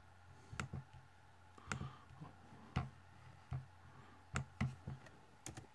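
Scattered sharp clicks from working a laptop, about eight over a few seconds at an uneven pace, over a faint steady low hum.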